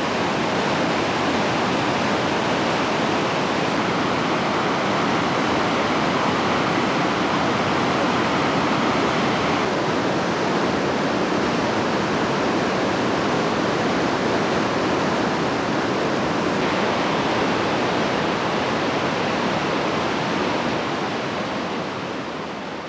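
Bow River whitewater rushing over rapids: a steady, dense rush of water, its tone shifting slightly twice and fading out near the end.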